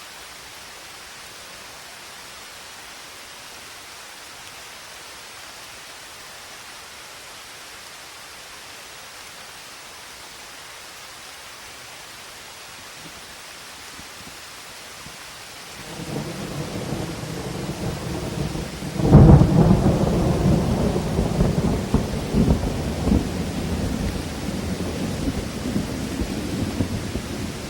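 Steady rain hissing, then about sixteen seconds in a roll of thunder builds, with a loud sudden clap about three seconds later and rumbling that rolls on after it.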